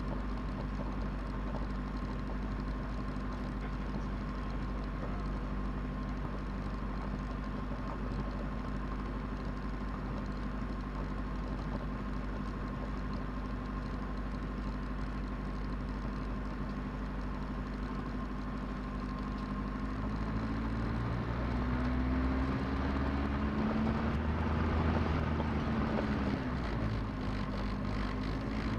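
Diesel engine of a Cessna 172 idling steadily, heard inside the cockpit. About two-thirds of the way through it grows louder and its note wavers up and down as the throttle is worked for the brake check and the start of the taxi.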